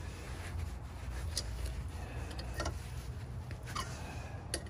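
A few faint clicks and taps of hand work on metal parts, spaced about a second apart, over a steady low hum.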